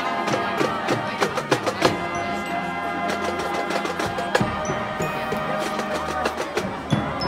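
High school marching band playing: brass holding chords over a pattern of sharp drum hits.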